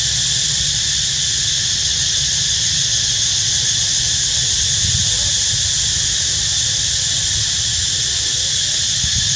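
A steady, high-pitched chorus of insects buzzing without a break, over a steady low rumble.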